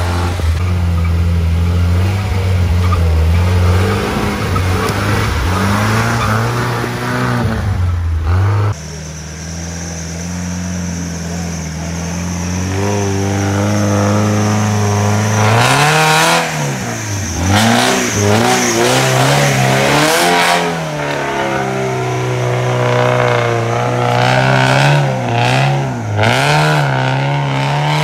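Off-road vehicle engine revving up and down repeatedly under load, its pitch rising and falling every second or two. The sound changes abruptly about nine seconds in, and the engine keeps working in bursts after that.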